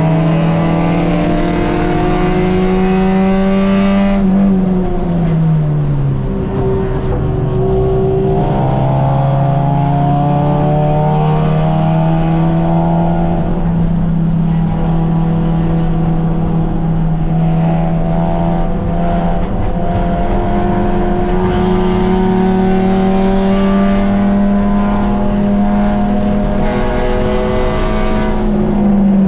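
Race car's engine heard from inside the stripped cabin, running hard under throttle with its pitch climbing slowly; the pitch falls away about four seconds in as the revs drop, then builds again and falls off near the end.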